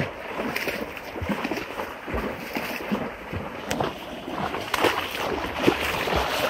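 A horse wading through a shallow muddy creek, its legs splashing and sloshing through the water with irregular thuds.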